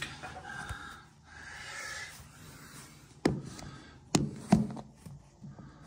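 Faint rustling handling noise with three sharp knocks a little past halfway.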